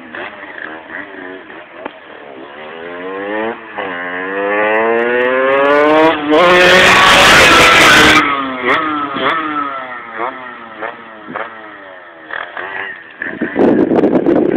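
Rieju RR 70 moped's two-stroke engine, fitted with an Athena aluminium racing cylinder, revving up through the gears with its pitch climbing and dropping at each shift. It is loudest as it passes, about six to eight seconds in, then falls in pitch as it rides away, revving up again near the end.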